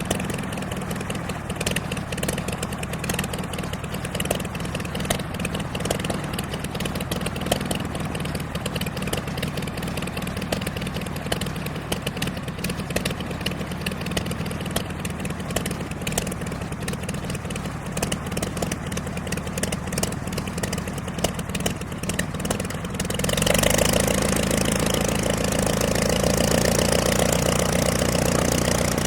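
Piston aircraft engine idling steadily with a ticking clatter. About 23 seconds in, it abruptly jumps to a louder, higher-pitched run, as in a light rev-up.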